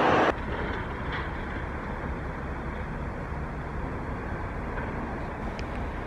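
A loud rushing noise cuts off abruptly right at the start, leaving a steady low outdoor rumble with a few faint ticks.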